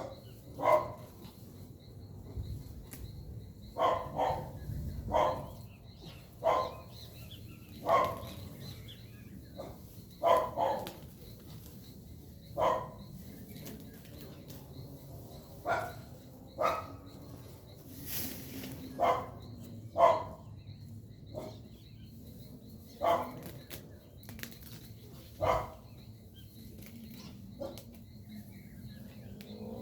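A hoe chopping into grass and soil during weeding, one sharp stroke every second or two, about sixteen strokes in all. A short hiss comes about two-thirds of the way through.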